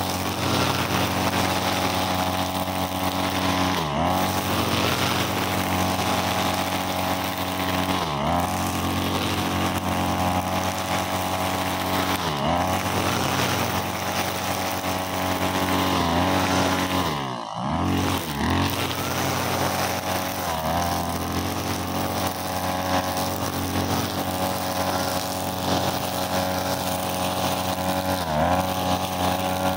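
Backpack brushcutter's 43cc engine running at high speed while its nylon trimmer line cuts grass. The engine note dips briefly and recovers about every four seconds, with one deeper dip just past the middle.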